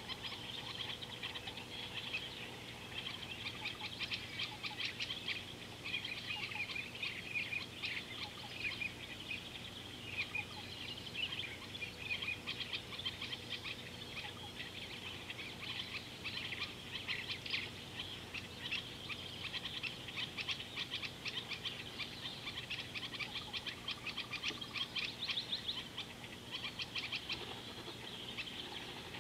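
A dense, continuous chorus of high, rapid chirping bird calls, with many calls overlapping.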